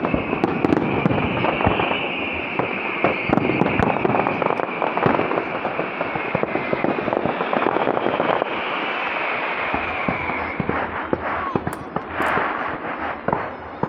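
Fireworks display with whistler fireworks: a steady high whistle, sinking slightly in pitch, carries on over dense crackling and bangs from bursting shells. The whistle fades out about ten seconds in, leaving a few scattered bangs and crackles.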